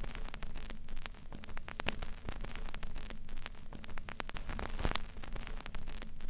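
Dense, irregular crackling over a steady hiss, with sharp clicks scattered at random.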